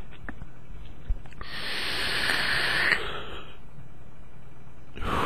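A person drawing a long, hissing breath in, which grows and then stops sharply about three seconds in. Just before the end comes a sudden hiss of a breath being blown out, the sound of exhaling a cloud of smoke or vapour.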